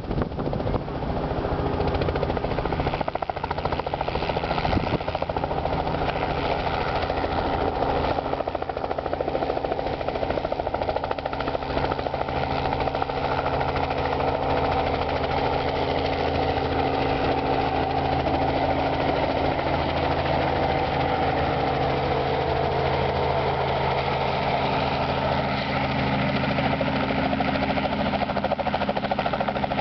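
Small piston-engined Robinson helicopter flying in low and setting down. Its engine and rotor sound grows stronger and more clearly pitched through the second half.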